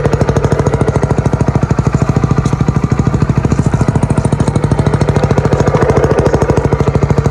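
Motorcycle engine running steadily with a large horn (bhopu) fitted into its exhaust silencer, giving a fast, even exhaust beat that sounds a little strange compared with a stock exhaust.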